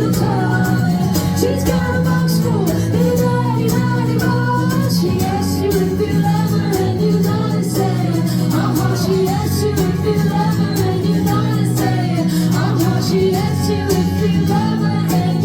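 Live band performing a pop-rock song, with a woman's voice singing over steady chords and a drum beat ticking on the cymbals.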